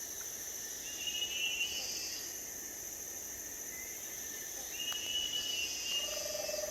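Rainforest bird giving a drawn-out, level, slightly buzzy call twice, about a second in and again near five seconds in, over a steady high drone of insects; a short low pulsed call comes near the end.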